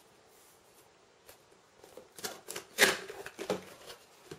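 Cardboard box being opened by hand: near quiet at first, then over about two seconds a run of scraping and rustling as the lid and inner flaps are pulled open, loudest a little past the middle.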